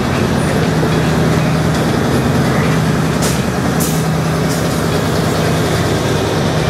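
Alsthom diesel-electric locomotive No. 4111 running with a steady low engine drone, with two short hisses of air a little past three seconds in and again near four seconds.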